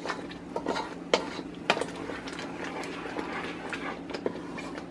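Wooden spoon stirring thick, simmering tomato paste in a pot, with irregular pops and clicks from the bubbling paste and the spoon against the pot.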